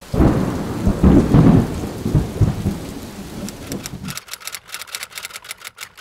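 A loud rolling rumble like thunder with a rain-like hiss, dying away over about four seconds. Then quick, irregular clicking of typing on a laptop keyboard.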